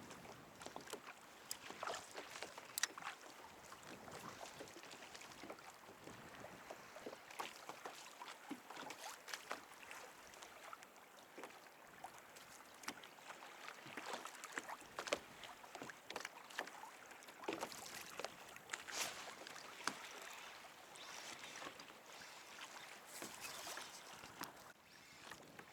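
Sea water splashing and lapping against a fishing kayak, with many small sharp clicks and drips scattered throughout.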